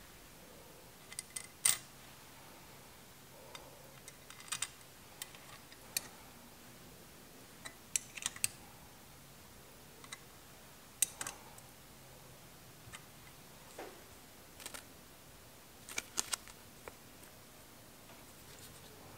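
Scattered light clicks and taps, a dozen or so at irregular intervals, from small metal carburetor parts and tools being handled and set down on a workbench.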